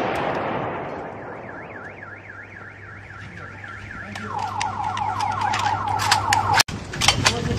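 The rifle volley's echo dies away, then a car alarm sounds. It gives a slow warbling tone and switches about four seconds in to a fast yelping tone. Sharp clicks come through the second half.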